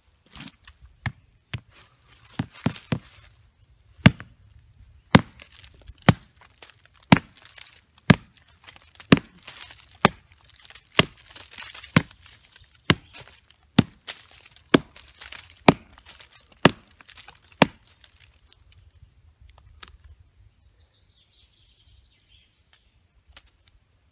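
A large homemade knife chopping into a fallen log: a few light taps, then about fifteen hard chops at roughly one a second, stopping about three-quarters of the way through.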